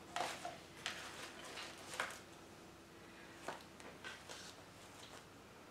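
Artificial flowers and leaves being picked up and handled: a few soft, irregular rustles and light clicks, the clearest near the start and about two seconds in.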